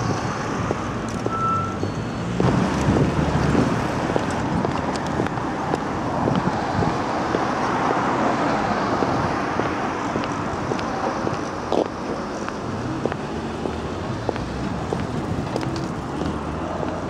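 Street traffic at a city intersection: cars passing in a steady wash of road noise, with one louder vehicle going by about two and a half seconds in.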